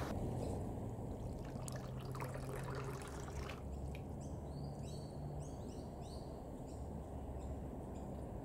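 Shallow brook water trickling over rocks and gravel, a low steady wash. Brief high chirps repeat through the second half.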